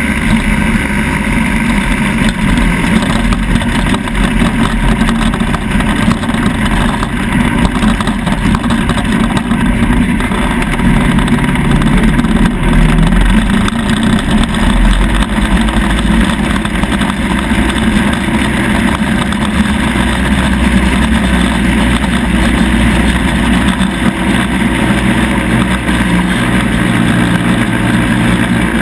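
Engine of a four-wheeled off-road vehicle running continuously as it drives over sand, loud and close, its pitch rising and falling with the throttle.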